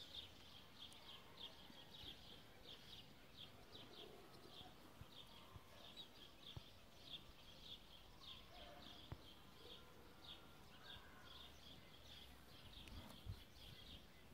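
Faint bird chirping: short high chirps repeated about three times a second, keeping on steadily.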